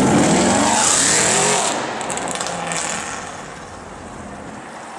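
Mercedes SLS AMG's V8 with a Supersprint exhaust accelerating past and away, loud at first and fading over the next few seconds.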